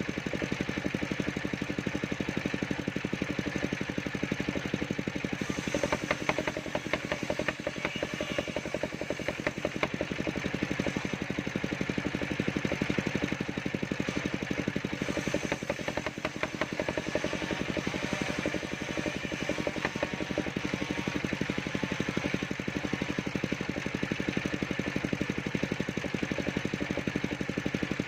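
Engine of a mobile circular sawmill running steadily at a constant speed, with a fast, even firing beat.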